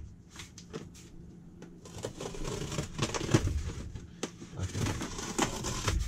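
A knife slitting the packing tape along the top of a cardboard box. Scattered scrapes, taps and rustles of cardboard, busier in the second half, with one sharp snap near the middle.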